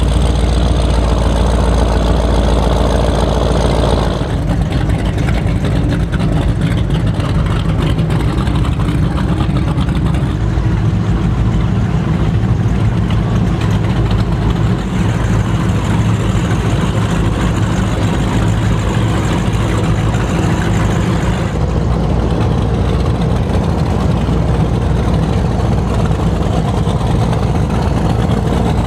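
Offshore powerboats' big twin engines rumbling at low speed through a harbour: an Apache 41, a Donzi 43zr and a Cigarette 42x go by one after another. The sound changes suddenly about four seconds in and again about two thirds of the way through, as one boat gives way to the next.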